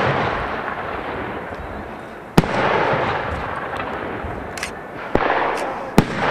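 Aerial firework shells bursting in a display: three sharp bangs, about two and a half, five and six seconds in, each followed by a long rumbling echo that fades away.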